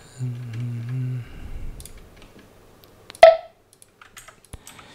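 Scattered clicks of a computer mouse and keyboard, with one sharp loud click a little past three seconds. Near the start comes a low steady hum of a man's voice, a closed-mouth 'mm' about a second long.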